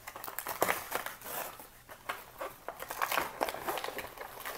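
Plastic toy packaging crinkling and crackling as it is worked open by hand, with irregular small clicks and snaps.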